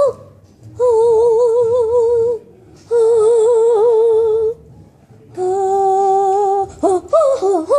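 A young girl singing without words: three long held notes, each with a wobble in pitch, the third one lower, then a few short sliding notes near the end.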